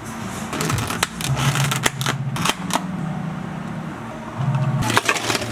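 Clear plastic dome lids snapped onto iced takeout cups and a straw pushed in: a run of sharp plastic clicks and rustles, over a steady low hum of cafe equipment.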